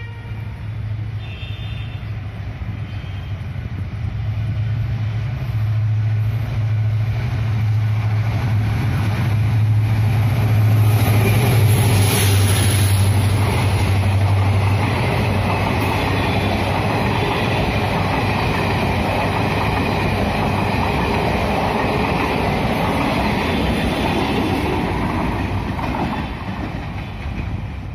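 EMD WDP4D diesel locomotive passing close by hauling a DEMU passenger train. A steady low engine drone fills the first half and grows louder, and then the rumble and rattle of the coaches' wheels on the rails carries on.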